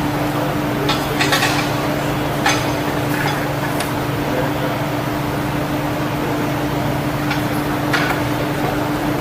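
A steady machinery hum with scattered metallic clanks and knocks, about seven in all, some close together about a second in and the last pair near the end. The clanks are the sound of work going on around a fighter jet.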